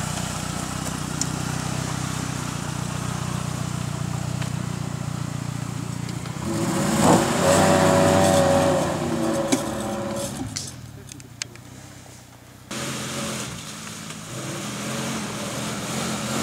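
Off-road 4x4's engine running under load as it crawls over rough ground. It is revved harder for a few seconds in the middle, then eases off, and the sound jumps abruptly where the shots change.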